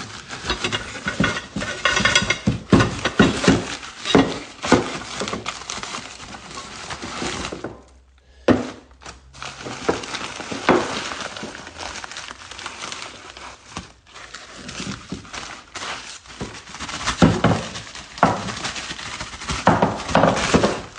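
A package being opened by hand: irregular rustling and tearing of packaging, with knocks and clinks of hard objects inside.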